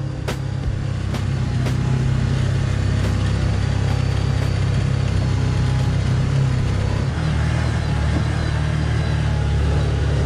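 Can-Am Commander side-by-side's engine running under way, heard from inside the open cab. It grows louder over the first two seconds and its note shifts about seven seconds in.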